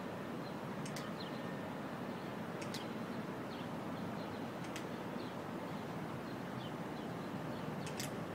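Steady city background hum, with faint short high clicks and little falling chirps every second or two.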